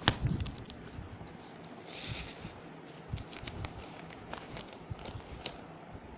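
Power bank packaging being handled and opened by hand: scattered clicks and taps, with a brief scraping or tearing sound about two seconds in.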